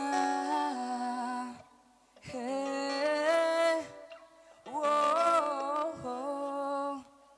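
A male singer humming a wordless intro into a microphone over an acoustic guitar: three long, gliding phrases with short pauses between them.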